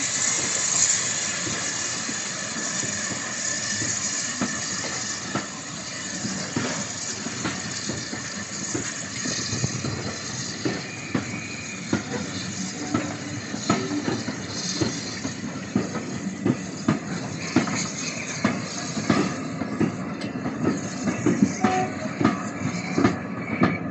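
Steam hissing from a steam locomotive, loudest at the start and thinning out over the first few seconds, then irregular metallic clanks and knocks of rail equipment that come thicker and louder in the second half.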